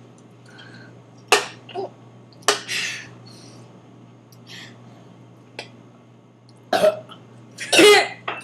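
Several short coughs and throat-clearing sounds from a girl straining to burp after gulping soda, spaced out with pauses, the loudest two near the end.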